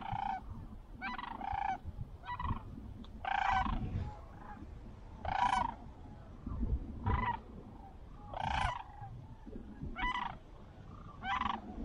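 Sandhill cranes calling: about a dozen short, rolling calls roughly once a second, some loud and some faint.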